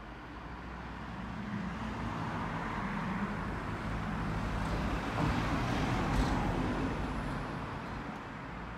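A road vehicle driving past, its engine and tyre noise swelling to a peak about six seconds in, then fading.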